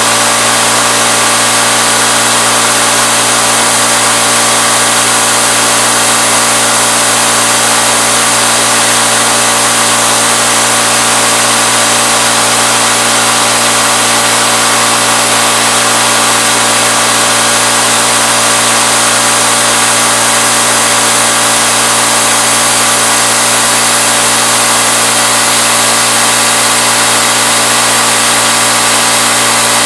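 CNC Bridgeport knee mill running steadily, its spindle turning a 3/8-inch end mill at 2200 RPM through aluminum: a constant motor hum with a dense, even cutting hiss.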